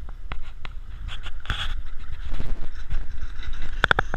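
An SUV towing an empty boat trailer away across wet sand, the trailer giving sharp clanks and rattles with a quick run of them near the end, over a steady low rumble.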